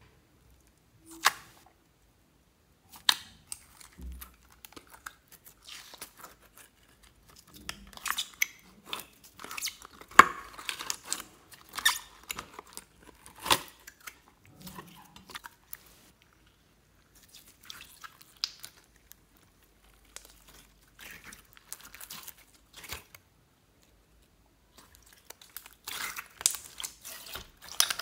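Clear slime with water beads sliding out of a plastic tube into a glass dish and being squeezed by hand: irregular wet squelching and crackling with sharp clicks, busiest in the middle and again near the end, with a few loud single clicks in the first few seconds.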